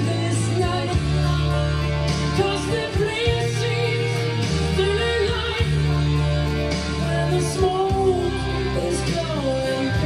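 A song with a singer over a steady bass line and instruments, played back from cassette on a Tandberg TCD 440A deck that has been restored to its factory specifications.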